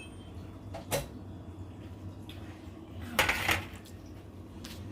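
Metal kitchen utensils and dishes clinking and clattering: a sharp clink about a second in, then a longer rattle just after three seconds.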